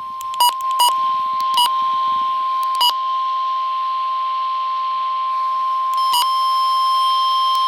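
NOAA Weather Radio warning alarm tone: one steady, high single-pitch tone that signals an emergency alert message is about to follow. Several short clicks fall over it, most of them in the first three seconds.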